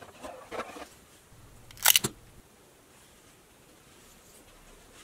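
Plastic toy blister packaging being handled: light crinkling in the first second, then one loud, short plastic crackle with a click about two seconds in.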